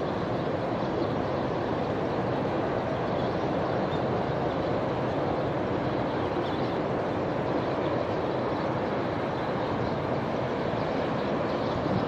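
Steady rushing noise of strong wind and choppy river water, with no bird calls heard.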